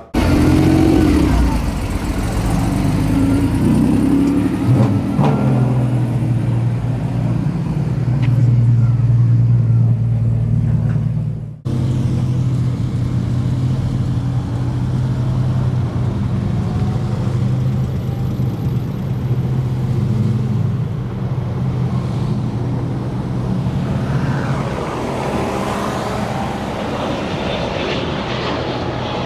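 Several car engines running in a low, steady rumble as cars pull out and drive past, broken off suddenly about a third of the way through and then carrying on. Near the end a jet airliner taking off adds its engine noise over the cars.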